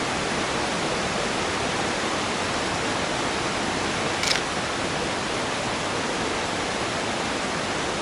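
Steady rush of a creek and waterfall, an even roar of water. A brief high click about four seconds in.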